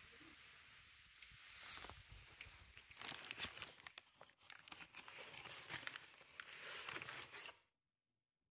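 Thin paper bag crinkling and rustling as it is handled and opened, a dense run of crackles that cuts off abruptly near the end.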